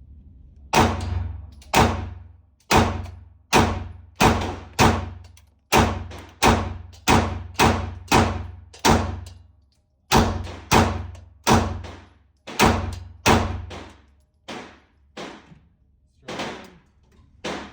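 9mm pistol firing a string of single shots at a steady, unhurried pace of about one to two a second, with a brief pause about halfway through. Each shot is sharp and echoes briefly.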